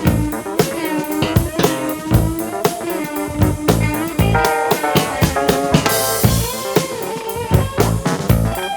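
Blues-rock music with guitar and a drum kit, played from a vinyl record through a Grado Red phono cartridge.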